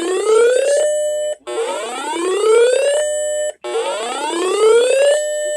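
Electronic emergency-alert siren sounding a repeating whoop: each buzzy tone sweeps upward for just over a second, holds briefly and cuts off, starting again about every two seconds.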